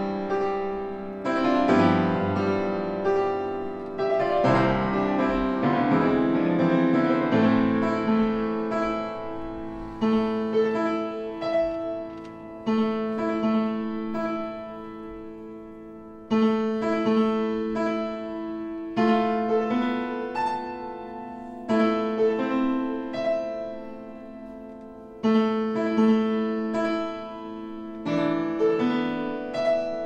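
Blüthner grand piano played slowly and softly: a series of phrases of repeated chords and notes. Each phrase begins with a louder stroke and fades over a few seconds before the next one comes in.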